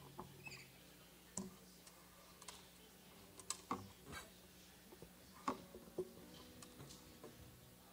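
Faint, scattered clicks and knocks, about a dozen over several seconds, from an acoustic guitar being handled and adjusted between strummed passages.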